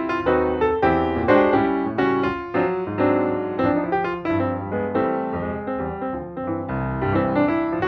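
Background piano music: a keyboard melody of struck notes in a steady flowing rhythm.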